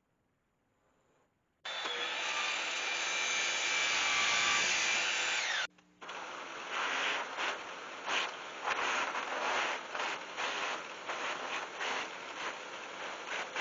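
Power-tool shop work: a steady tool run starts suddenly about a second and a half in and cuts off abruptly about four seconds later, followed by an uneven, pulsing rubbing and cutting noise with several surges a second.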